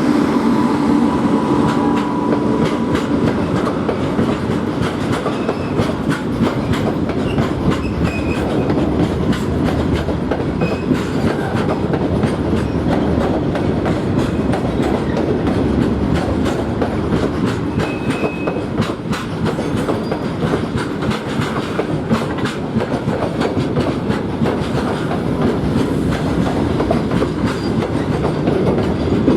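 A train running past close by: a steady heavy rumble with a continuous rapid clatter of wheels over rail joints.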